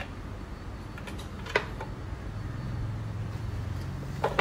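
Two sharp clicks, one about a second and a half in and one near the end, from shoe-cabinet parts being knocked and fitted together by hand during assembly. A steady low hum runs underneath.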